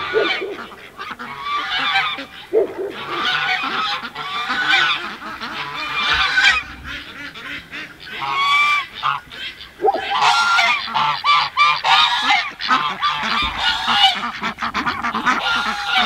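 Domestic geese honking loudly and repeatedly, calling in quick runs with a short lull about halfway through.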